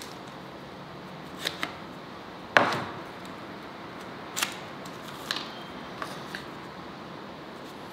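Handling noise from a small box being opened and a battery pulled out: a handful of short, sharp clicks and taps, with the loudest snap about two and a half seconds in.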